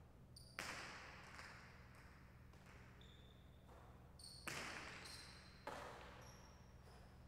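Jai alai pelota striking the wall and cestas during a rally. There are three sharp cracks, about half a second, four and a half and five and a half seconds in, each ringing and echoing briefly in the court. The first follows the serve.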